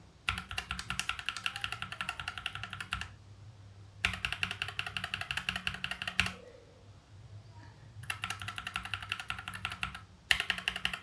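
Fast typing on a mechanical keyboard (TM680 kit with case and PCB foam, unlubed switches) fitted with PBT double-shot keycaps in FSA and ASA profiles. It comes as four quick bursts of rapid keystrokes, each a few seconds long, with short pauses between.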